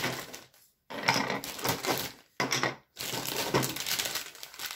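Clear plastic bag crinkling and rustling as hands open it and take out hard plastic marble-run pieces, in several spells with short breaks.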